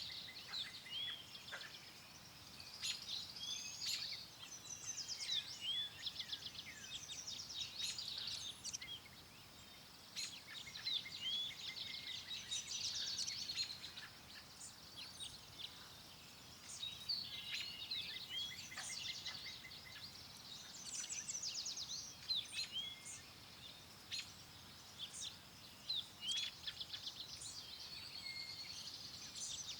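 Several songbirds singing and calling at once: a continuous mix of short chirps, rapid trills and brief whistled notes, over a faint steady hiss.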